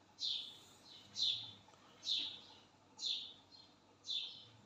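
A bird chirping: short, high, falling chirps repeated about once a second.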